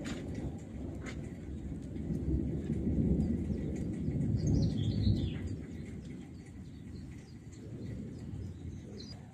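Distant thunder, a low rumble that swells and then slowly fades. A bird calls with a short run of falling chirps about halfway through, and briefly again near the end.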